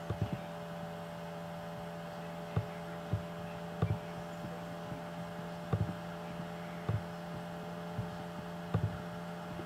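Steady low electrical hum with about eight short, soft clicks at irregular intervals, from computer clicks on dialog buttons.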